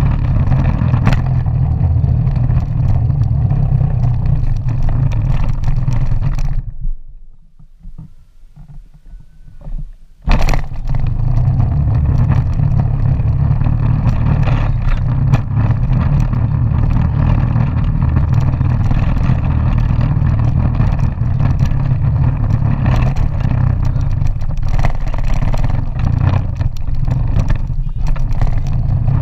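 12-volt electric ride-on toy four-wheeler (Kawasaki-branded) driving on pavement: a steady low rumble of its plastic wheels and body, with a faint whine from its drive motors. The rumble drops away for about three seconds roughly a quarter of the way in, then comes back with a sharp knock.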